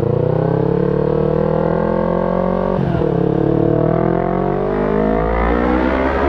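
Yamaha R3's parallel-twin engine through an aftermarket Akrapovic muffler, accelerating hard with the pitch climbing, dropping sharply on an upshift about three seconds in, then climbing again. It is inside a tunnel.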